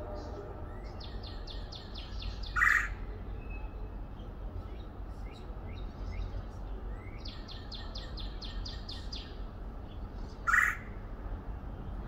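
Birds calling: two runs of quick, evenly repeated high chirps, and two short, loud calls about eight seconds apart, over a steady low rumble.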